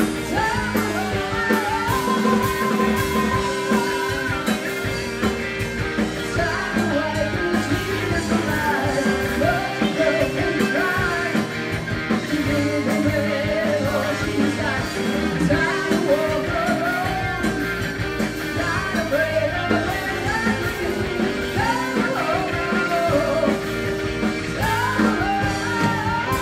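A woman singing lead with a live rock band, electric bass and guitar playing under her voice.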